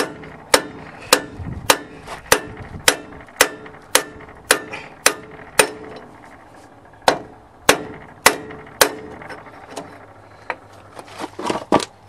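Mini sledgehammer striking an oxygen cylinder cap held against a new rear axle bearing, driving the bearing into a Case backhoe's axle housing; the bearing is going in. Steady metal-on-metal strikes about two a second, each with a short ring, a brief pause about halfway, then a few more blows, lighter toward the end, with a quick flurry of taps just before it ends.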